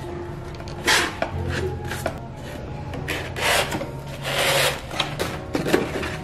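Foam-board and thin plywood model-aircraft parts being handled and rubbed against each other and the wooden tabletop: a run of short scraping rubs with small knocks. The longest rubs come about three and a half and four and a half seconds in.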